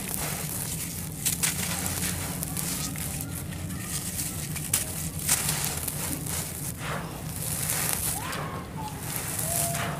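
Dry, crumbly sand-cement chunks being crushed in bare hands, crackling and crunching with several sharp cracks, as the broken grit and dust pour and sift down onto loose sandy dirt.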